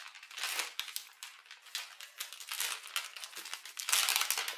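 A Cadbury Gems Minis pack being torn open by hand: irregular crinkling and rustling of the wrapper, loudest near the end.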